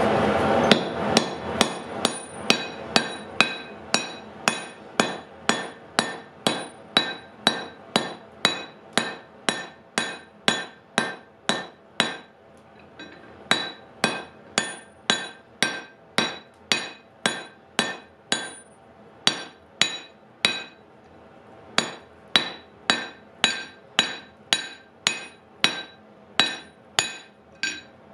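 Hand hammer striking hot wrought iron upset in a heading tool on an anvil, about two blows a second, each with a bright metallic ring. The blows pause briefly twice, about twelve and twenty seconds in. This is the hot end being spread into a flat mushroom cap.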